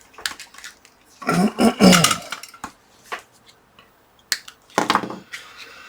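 Small metal tools clinking and tapping on the workbench during desoldering work, as a series of short scattered clicks, with a brief murmured voice about a second in.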